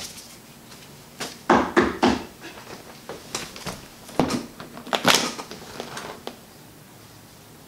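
A hard-shell briefcase full of cash being handled and its lid shut, heard as a series of sharp clacks and knocks with the loudest around the middle.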